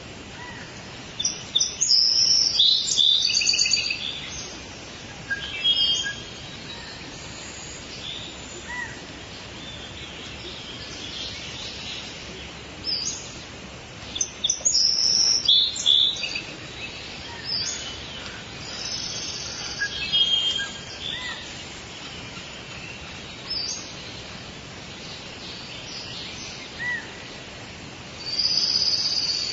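Tropical rainforest ambience: several birds calling in high chirps and short whistled phrases over a steady background hiss, with the loudest bursts of calls a couple of seconds in, around the middle, and near the end.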